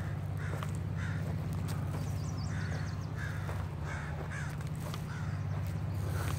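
Crows or ravens (corvids) giving a run of short caws, about two a second with pauses. Under them a distant train rumbles low and steady, growing louder toward the end, and a small bird chirps high briefly in the middle.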